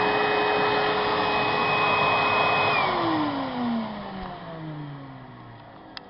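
Vacuum cleaner running with a steady whine, then switched off about three seconds in: the motor's whine falls in pitch and the rush of air fades as it spins down. A short click near the end.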